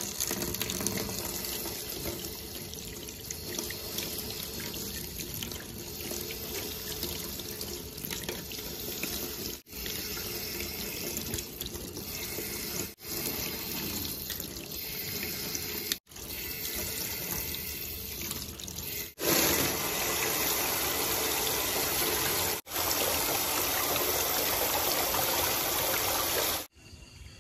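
Kitchen tap running steadily into a stainless steel sink, the water splashing over winged beans and leafy greens as they are rinsed by hand. The flow is louder over the last third, with a few brief breaks.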